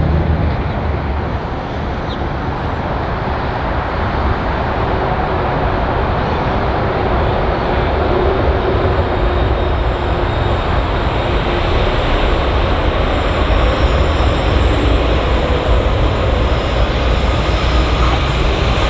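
Pacific National freight train hauled by three diesel-electric locomotives, NR110 leading, approaching with a steady engine rumble that slowly grows louder as it nears.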